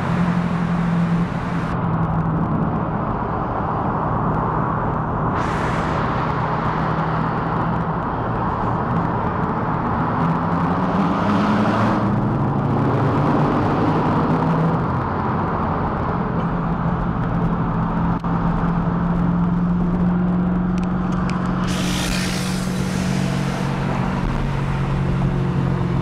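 Sports-car engines and exhausts running hard in a road tunnel, heard from inside one of the cars, with a Mercedes E55 AMG driving alongside. A steady low exhaust drone climbs in pitch as the cars accelerate around ten seconds in, with a few short bursts of hiss.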